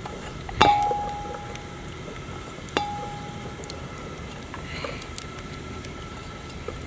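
Stainless steel steamer plate knocking against the steel pot twice, about two seconds apart. Each knock rings on briefly with a clear metallic tone, and the first is louder.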